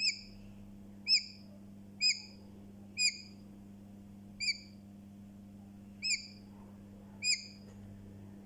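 Newly hatched chick peeping: seven short, high chirps about one a second, each rising and then dropping in pitch.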